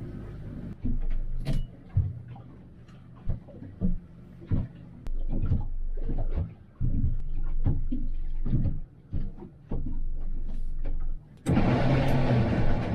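A boat's engine running at low speed, heard inside the pilothouse cabin, with irregular short thumps and bursts of noise. Near the end it turns abruptly into a steady, louder rush of engine and water noise.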